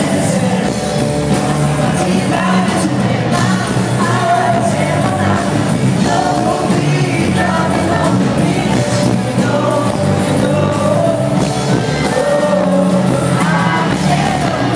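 Live pop-rock band playing loudly through a PA, with a lead singer over the full band, echoing around a large hall.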